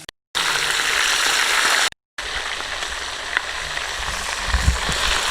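Chicken frying in hot oil, a steady dense sizzle, broken twice by brief drop-outs to silence near the start and about two seconds in. A couple of low thumps about four and a half seconds in.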